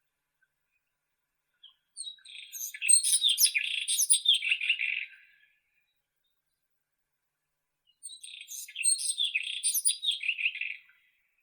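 White-throated robin (Irania gutturalis) singing two song phrases of about three seconds each, several seconds apart, each a quick run of high notes.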